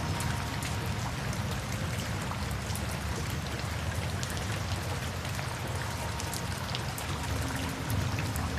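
Steady rain falling, with many separate drops ticking on a surface, over faint soft music with a few held notes.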